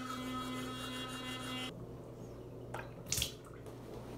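Electric sonic toothbrush buzzing with a steady hum while brushing teeth, cutting off abruptly a little under two seconds in. A couple of short noises follow about a second later.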